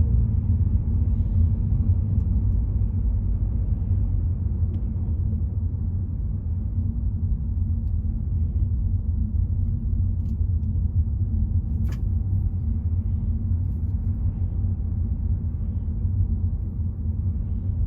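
A car driving along a road: steady low rumble of road and engine noise, with one sharp click about twelve seconds in.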